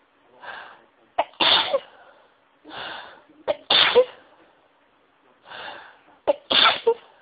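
A person sneezing three times in an induced sneezing fit, about two and a half seconds apart. Each sneeze has a drawn-in breath and a sharp catch before the loud burst.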